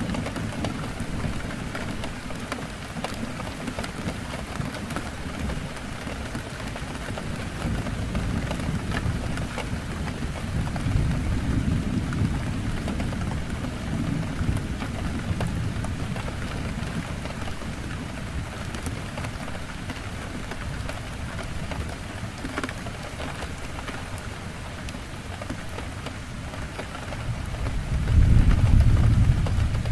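Heavy rain falling steadily on a window, with low rumbles of thunder that swell around ten seconds in and peak loudest near the end.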